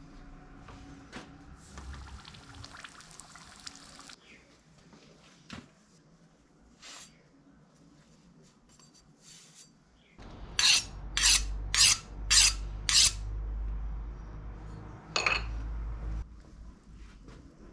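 Workshop metalwork: a brief scraping rub, then five sharp clinking strikes about half a second apart over a low hum, and one more strike a couple of seconds later.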